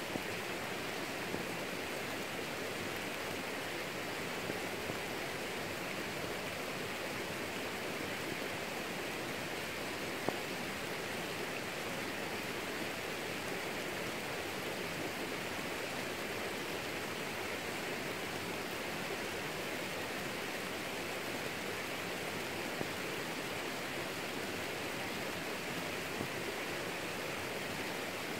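Steady rain falling on garden plants, an even hiss with a few louder drops ticking now and then.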